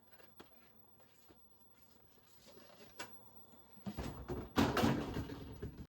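Handling noises: a few light clicks, then a louder stretch of knocking and rustling in the last two seconds that cuts off suddenly.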